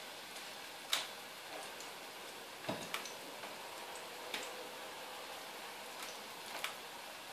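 Chicken kabab patties shallow-frying in a little oil in a pan: a faint steady sizzle with about six scattered sharp pops from the spitting oil.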